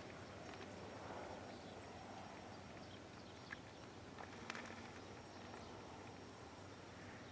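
Faint, distant drone of an ag spray plane's engine, dying away over the first couple of seconds, leaving quiet rural ambience with a few light clicks.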